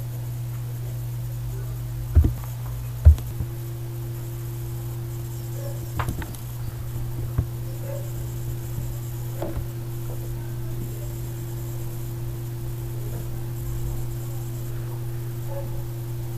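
Steady low electrical hum, with two short thumps about two and three seconds in and a few faint clicks later.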